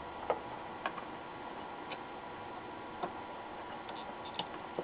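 Light, irregular clicks and taps, about half a dozen, from a soldering iron and a hand-held circuit board as capacitors are desoldered, over a steady faint hiss.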